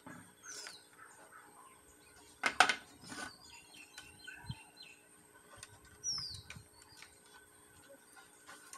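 Birds chirping, including two quick falling whistles, one near the start and one about six seconds in. A brief cluster of sharp knocks about two and a half seconds in is the loudest sound.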